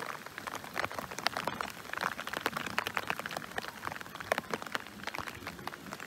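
Rain falling, with many irregular drop taps close to the microphone over a light hiss.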